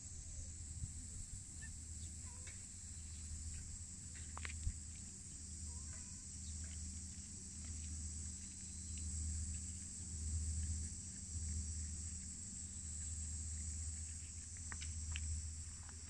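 Steady high chirring of insects, with a low rumble underneath and a few faint clicks.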